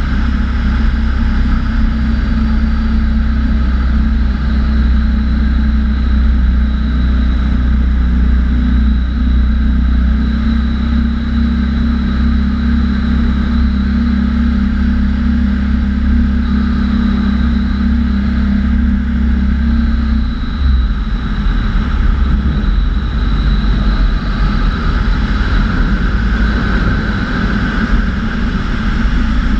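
Bautek Skycruiser microlight trike's engine and pusher propeller running steadily in cruising flight. About two-thirds of the way through, the engine note changes.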